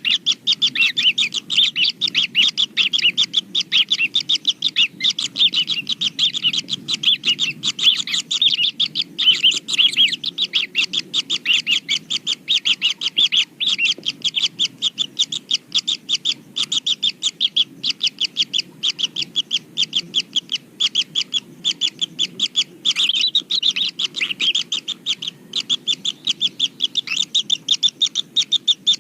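Kingfisher nestlings giving rapid, continuous high-pitched chirping calls over a steady low hum.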